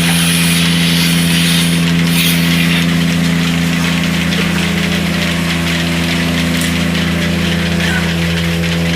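An engine or motor running steadily, a constant hum at an unchanging pitch.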